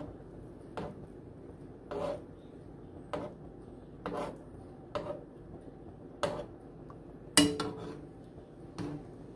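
Metal spoon clinking against a nonstick skillet about once a second as simmering water is spooned around eggs poaching in the pan, with one louder clink about two-thirds of the way through. A faint simmer sounds underneath.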